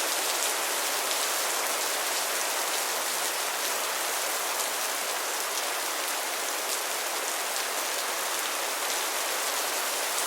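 Steady rainfall, a constant hiss of many drops with faint individual drop ticks.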